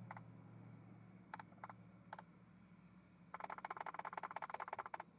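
Laptop keyboard being typed on, faintly: a few single clicks, then a quick, even run of keystrokes from about three seconds in.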